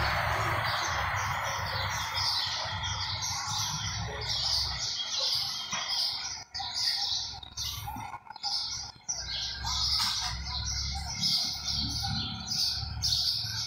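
Birds chirping in a fast, unbroken run of short high notes.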